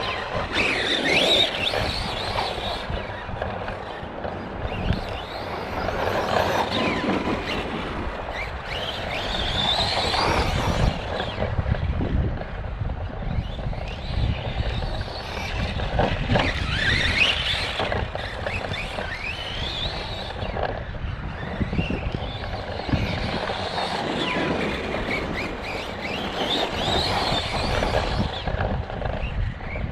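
Arrma Kraton 4S RC truck's brushless motor and drivetrain running hard around a track, the whine rising and falling in pitch over and over as it speeds up and slows, with short knocks along the way. It carries a noise that the owner puts down to a bad bearing or gear.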